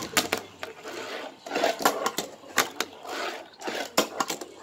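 Fingerboard tricks: an irregular run of sharp clicks and clacks as the small board's deck and trucks strike the tabletop obstacles and handrail, with brief stretches of wheel-rolling noise between.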